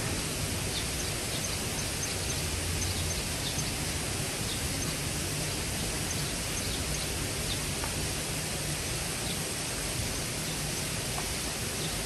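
Steady rushing of a mountain stream, with a few faint high chirps scattered through it.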